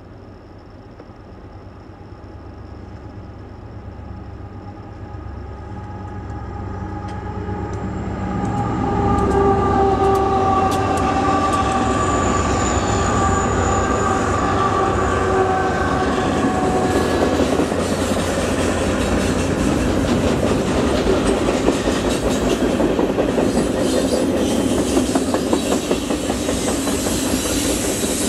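Union Pacific freight train's diesel locomotives approach and pass, growing steadily louder over the first nine seconds or so, with a few sustained high tones. Then the freight cars roll past with a steady rumble and rapid clickety-clack of steel wheels on the rails.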